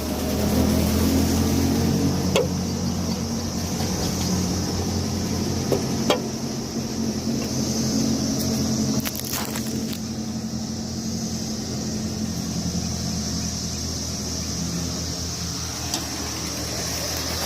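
A car engine idling steadily, with a few sharp clicks over it and crickets chirping steadily.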